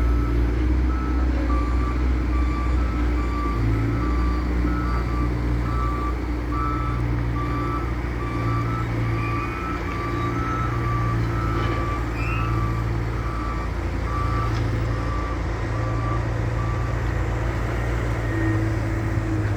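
Loader's diesel engine running with a steady low drone under its reversing alarm, which beeps at an even pace while the machine backs up. The beeping stops near the end.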